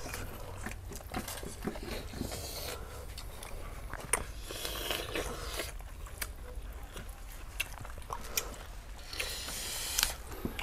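Roast pork leg being cut with a knife and torn apart by hand on banana leaves: irregular small clicks and rustling, with a few denser spells of noise.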